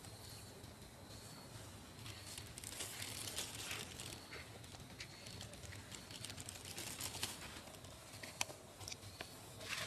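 Faint outdoor ambience with light crackly rustling and a few sharp clicks, the loudest near the end.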